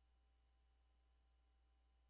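Near silence: faint steady electrical hum.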